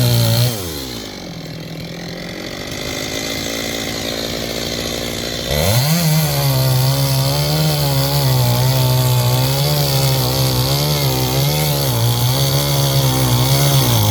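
Chainsaw revving down to idle, idling for a few seconds, then throttled up sharply about five seconds in and held at high speed, its pitch wavering up and down as it cuts wood.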